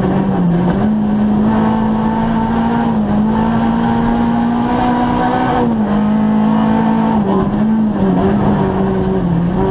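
Opel Corsa rally car's engine heard from inside the cabin, pulling steadily at speed along a rally stage. Its pitch holds high, dips briefly about half a second in, then steps down a few times in the second half.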